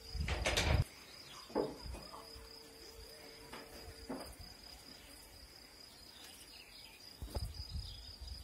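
Rural outdoor ambience: a steady high-pitched insect buzz runs throughout. There are brief low rumbles in the first second and again near the end.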